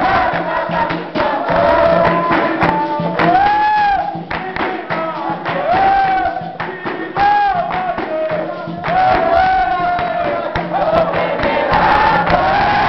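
Capoeira roda music: a group singing together over steady percussion, with quick, sharp strikes running throughout.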